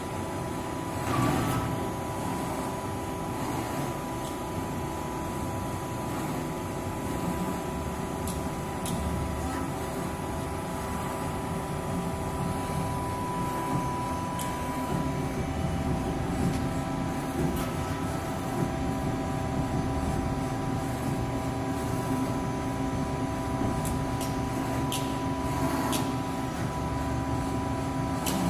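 Steady hum of idling machinery: several steady tones over a low rumble, with a few faint clicks scattered through it and no punching strokes.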